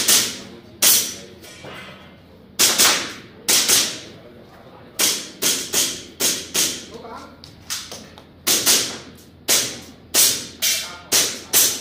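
Airsoft pistol firing about twenty sharp shots, singly, in quick pairs and in fast strings, as in a practical-shooting course of fire.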